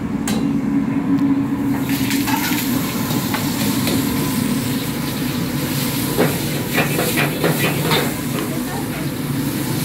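Steady roar of a high-heat wok burner, with sizzling and hissing in the hot wok from about two seconds in as the meat for lomo saltado sears. From about six seconds in, a run of sharp metal clicks and scrapes as the ladle works against the wok.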